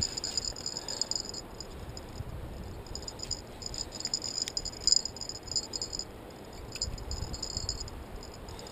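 Round baitcasting reel clicking and ratcheting in bursts under load as a heavy fish is fought, the handle being cranked against the drag, over a low wind rumble on the microphone.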